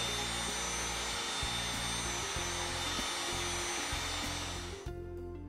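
Electric heat gun blowing steadily over a glued fabric patch to heat-activate the adhesive, with background music underneath. The blower noise stops abruptly near the end.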